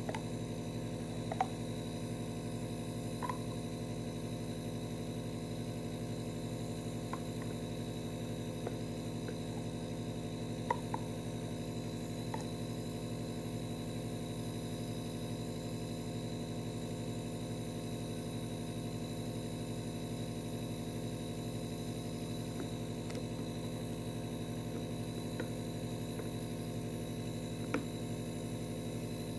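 Steady electrical mains hum, a buzz of several constant tones, with a few faint short clicks now and then.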